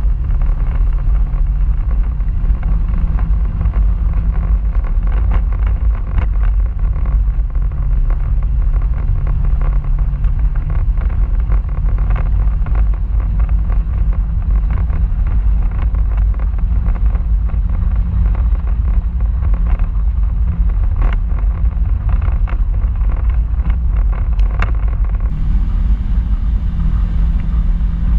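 Polaris RZR side-by-side's engine running steadily while driving over a rough dirt trail: a low, even drone with heavy rumble and scattered sharp clicks and rattles. About 25 s in, the engine sound grows fuller and brighter.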